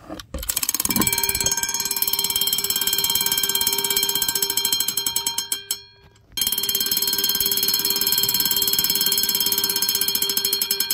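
Vintage fire alarm bell ringing loud, its gong struck in a rapid continuous clatter. It cuts out briefly about halfway through, then rings again.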